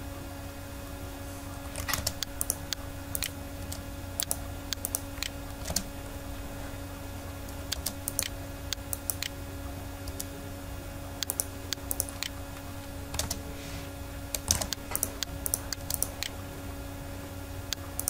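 Computer keyboard and mouse clicking in irregular clusters as drawing commands are entered, over a steady electrical hum.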